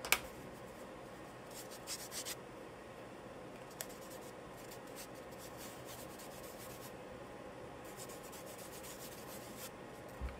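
Charcoal scratching across sketchbook paper in short runs of quick strokes, with a sharp tap near the start and a soft low knock near the end.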